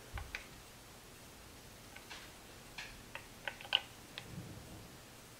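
Faint scattered metallic clicks and taps as the large bolt holding a rifle's barrel to its wooden stock is given a final bit of tightening, with the sharpest click a little past halfway.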